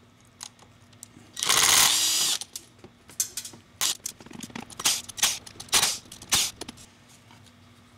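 Ridgid cordless drill-driver backing out the side-plate screws of a geared e-bike hub motor: one loud whirring run about a second and a half in, then several shorter whirs and sharp clicks.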